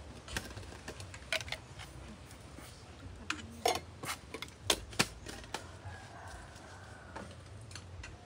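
Kitchen utensils and dishes clinking and knocking: a handful of irregular sharp strikes, the loudest around the middle.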